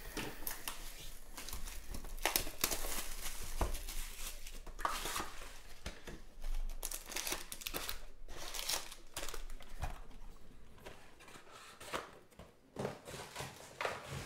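Wrapping and gold foil card packs of a 2020 Panini Prizm Football hobby box crinkling as the box is opened and the packs are pulled out and stacked. Irregular rustling and crackling, with a few light knocks.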